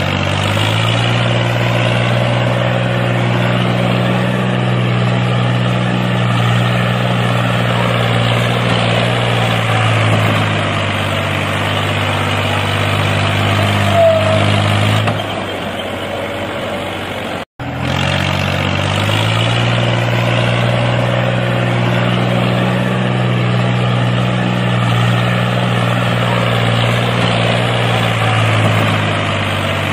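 A tractor engine running steadily with a low, even throb: a recorded engine sound laid over footage of a toy tractor, not the toy's own motor. It fades a little, cuts to silence for an instant about two-thirds of the way in, then starts up again and runs on the same way.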